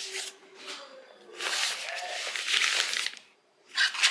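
Rustling and crinkling of a fabric insulated lunch bag as snacks are packed into it and shuffled around inside. It comes in two spells, a longer one in the middle and a shorter one near the end, with a brief hush between.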